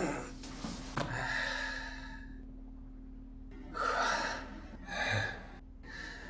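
A man breathing hard after exertion, several heavy gasping breaths about a second apart as he catches his breath.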